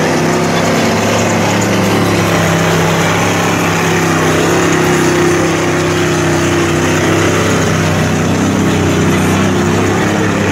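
Engine of a lifted off-road mud-bogging vehicle on oversized tractor-tread tyres, running hard and steady as it churns through deep mud.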